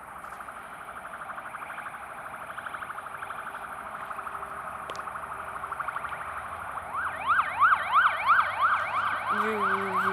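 Emergency vehicle siren in a fast yelp, its pitch sweeping up and down about three times a second, faint at first and much louder from about seven seconds in. A low steady tone joins near the end.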